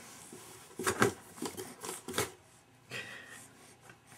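Cardboard box being handled: a few short, sharp crinkly knocks and rustles of the cardboard in the first half.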